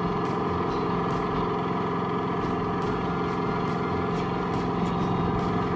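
Car engine idling steadily, a constant even drone.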